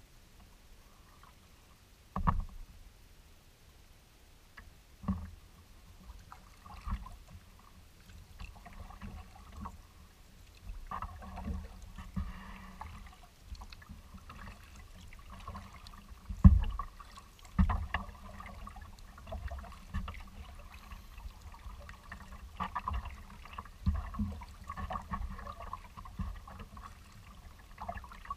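Kayak paddling on choppy water: paddle blades dipping and water splashing and lapping against the kayak hull. Occasional sudden thumps break in, the loudest about sixteen seconds in.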